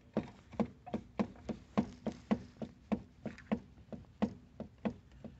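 Windscreen of a Voltz EV1 electric motorcycle being rocked by hand, knocking in a steady run of about three sharp clacks a second. The owner takes the rattle for a loose windscreen support inside the dash panel.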